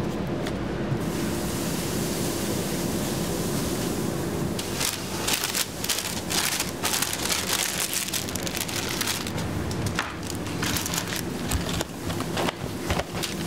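Burger wrapping paper crinkling and rustling in irregular crackles as a burger is wrapped by hand. This starts about a third of the way in, over a steady background hiss and low hum.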